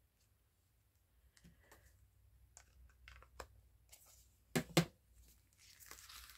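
Light taps and clicks of a stamp pad being dabbed onto a CD holder, with two sharp knocks a little past halfway and a soft rubbing near the end.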